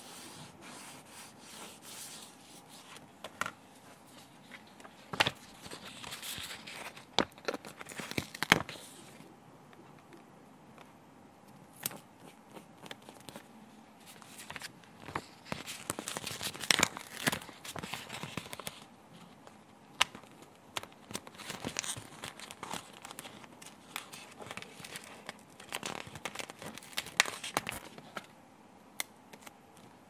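Close-up sticker-book handling: a sticker rubbed down onto a paper page with a pad, then stickers peeled off a glossy sticker sheet that crinkles as it is flexed, with sharp clicks and taps as they are pressed onto the page.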